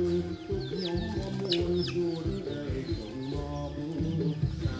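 Chickens calling in short, high, falling chirps, several a second, over background music with low held notes.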